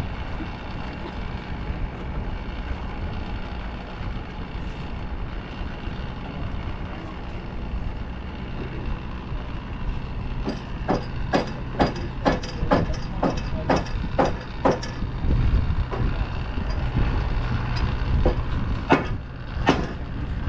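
Steady low rumble, then about halfway in a run of sharp knocks, two or three a second, with a few louder ones near the end: knocking on the jetty's timber posts during repair work.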